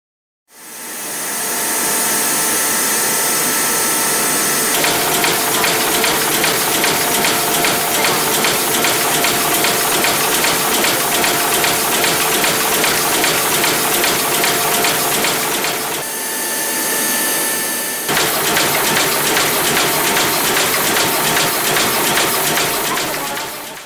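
A wine capsule machine running at its glue metering unit and band feed: a steady mechanical hiss with a few held tones. About five seconds in, a fast, regular ticking joins it. The sound dips for a couple of seconds about two-thirds of the way through.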